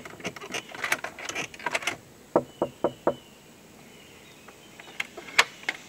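Scattered light clicks and taps, a string of them in the first three seconds and a few more near the end, over a faint steady background.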